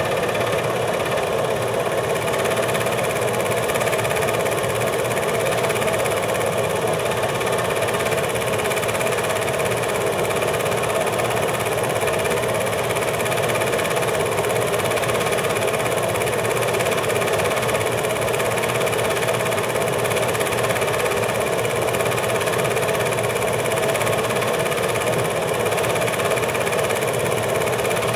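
8mm film projector running: a steady mechanical whirr that does not change, even when the picture cuts from birds on the sand to the open sea.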